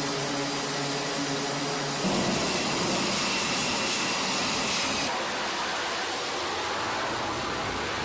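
Jet engine noise on an aircraft carrier's flight deck, from an F/A-18 strike fighter on the steam catapult: a steady rushing noise with a thin high whine. Before it, a steady low hum with several held tones; the sound changes abruptly about two seconds in and again about five seconds in.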